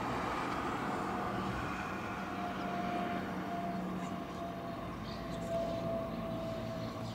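Boeing 767-424ER jet airliner passing overhead on approach, its twin turbofan engines making a steady rumble with a faint whine that slowly falls in pitch.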